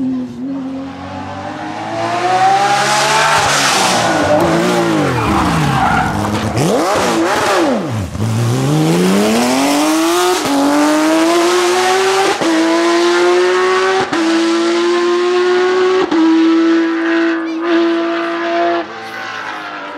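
Porsche 911 GT3 rally car's flat-six engine at full stage pace. The revs fall and rise sharply several times, then it accelerates hard, climbing through upshifts about every two seconds, and fades as it goes away near the end.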